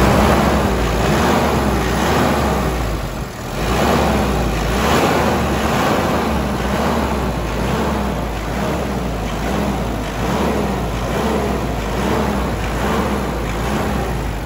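Mitsubishi Strada Triton pickup's engine running, a loud steady rumble that dips briefly about three seconds in and then picks up again.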